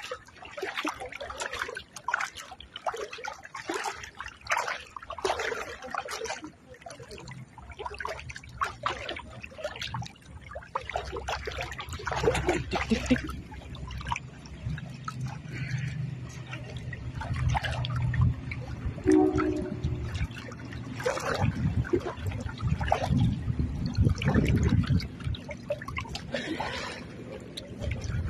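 River water splashing and sloshing as people wade through it, in irregular splashes. From about halfway a low rumble joins in underneath.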